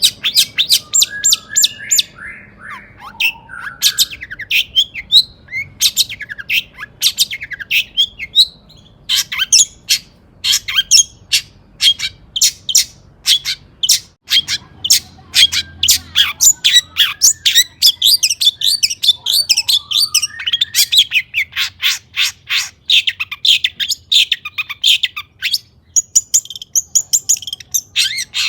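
Long-tailed shrike (cendet) in full song: fast runs of sharp, repeated chattering notes mixed with short whistled glides.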